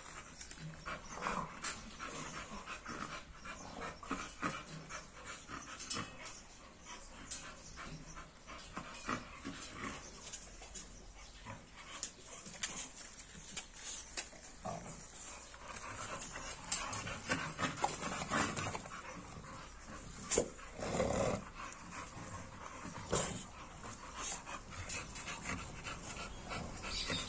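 A stocky bully-breed dog panting and snuffling in short irregular breaths.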